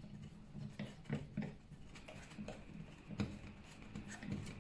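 Faint scattered clicks and rubbing of a threaded fitting being screwed into a Kärcher K-series pressure washer adapter by hand, over a low steady hum.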